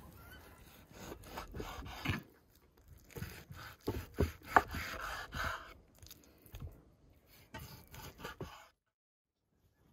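Large kitchen knife slicing through raw beef and knocking down onto a wooden cutting board, in three runs of strokes with short pauses between, the sharpest knock about halfway through. It cuts off abruptly near the end.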